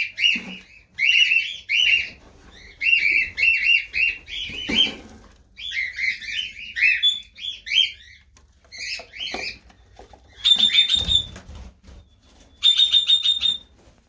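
Red-rumped parakeets calling in runs of short, sharp chirps while being caught and shut in a carrying box. There are flutters of wings, and a knock about three-quarters of the way through.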